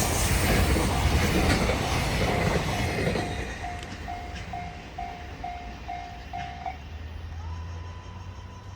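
A train runs past and its rail noise fades over the first three seconds, while the level-crossing warning bell dings about twice a second. The bell stops about seven seconds in, once the train has cleared. Near the end a steady high whine slides in.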